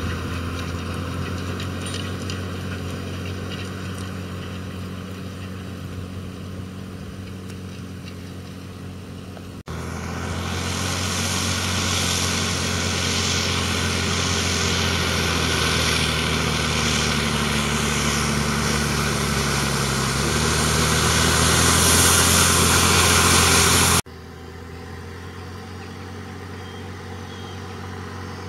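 Valtra T151 tractor's 6.6-litre six-cylinder diesel engine running steadily, heard in three abrupt cuts. From about ten seconds in to about twenty-four seconds it is much louder and noisier, and its pitch shifts a little late in that stretch.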